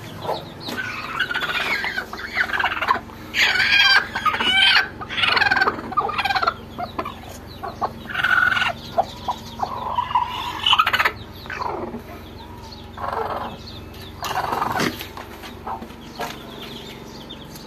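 Broody hen on a clutch of eggs clucking and calling again and again in short calls that glide up and down, disturbed on the nest by a hand. The calls thin out near the end.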